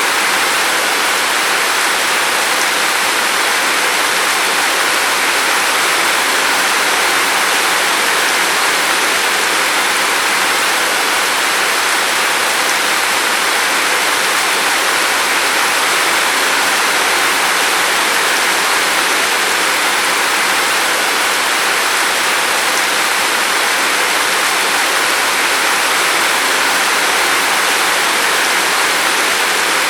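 Steady rain falling: an even hiss with no single drops, thunder or breaks standing out.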